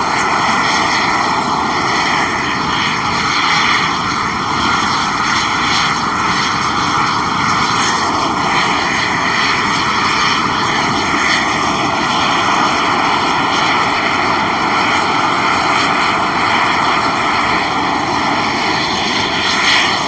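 Geothermal steam vent hissing steadily: a loud, unbroken rush of escaping steam from boiling hot-spring vents.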